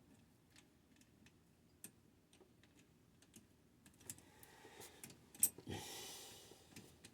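Faint, scattered clicks and taps of hand tools and small parts being handled while wiring a pressure switch, with a sharper click about five and a half seconds in, followed by a brief soft hiss.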